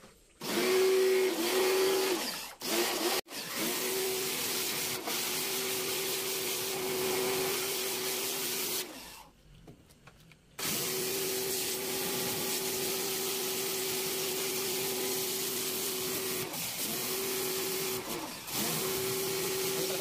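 Pressure washer running, a steady motor hum with water hissing from the wand as it sprays inside a plastic washing machine tub. It stops and restarts several times as the trigger is let go, the longest stop about nine seconds in, lasting a second and a half.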